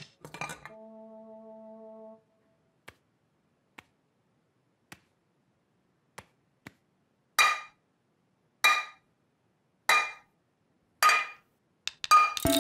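Steel saucepan and its lid clashed together like cymbals: four loud ringing clangs about a second and a quarter apart, then a quick flurry of clangs near the end as music comes in. It opens with a single clink and a short held musical chord, followed by a few faint ticks.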